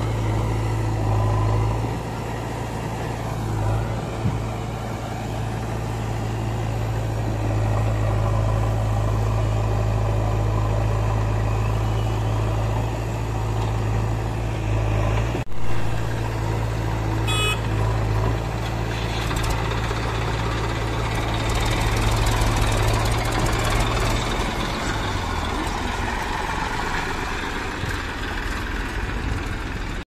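Diesel engines of a JCB 3DX backhoe loader and a Massey Ferguson tractor running as heavy machinery loads mud, a steady low hum. The engine note shifts in the last few seconds.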